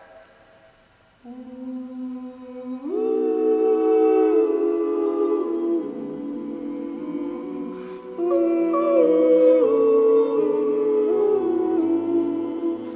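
Male barbershop quartet singing a cappella in a reverberant church: the echo of the previous chord dies away almost to silence, then about a second in a single voice enters alone on a low note and the other three join it in close harmony, moving through soft, largely hummed sustained chords.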